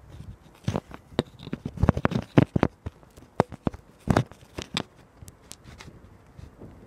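Handling noise and footsteps close to the microphone: irregular knocks, scuffs and rustles, dying down about five seconds in.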